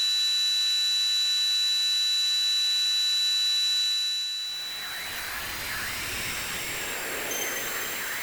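Electronic recreation of tinnitus: a steady high-pitched ringing, several tones at once, over a hiss. A little over four seconds in it fades into a rougher, wavering rushing noise with a few brief high beeps.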